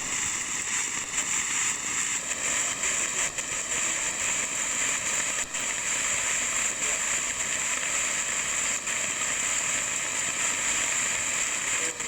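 Water rushing steadily, a continuous, unbroken hiss.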